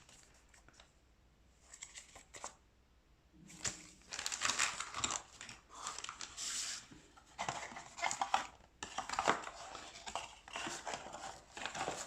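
Plastic packaging crinkling and rustling in irregular bursts as unboxed accessories are handled, starting after a few quiet seconds.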